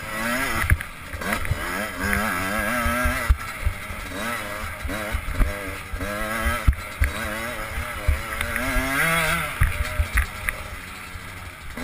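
Enduro motorcycle engine revving up and down in quick waves as the throttle is worked over rough, rutted ground, with frequent short knocks from the bike over bumps and a heavy low rumble underneath.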